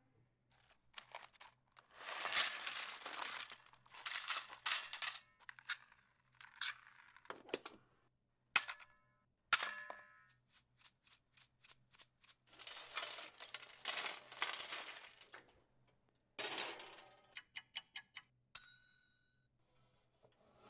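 Kitchen handling sounds: rustling and clattering of items with metallic clanks, then a quick run of sharp clicks and a single bright metallic ding near the end. A faint steady low hum sits underneath.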